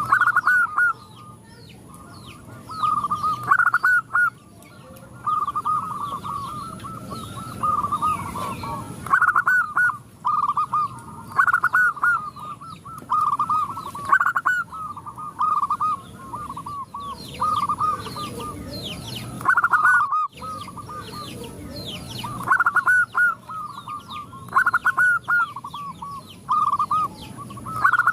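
Several zebra doves (perkutut) cooing, their rolling coo phrases repeating every second or two and overlapping into a near-continuous chorus.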